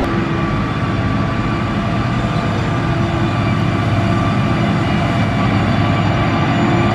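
Heavy diesel engine of a motor grader running steadily, a constant low engine drone with a faint whine over it.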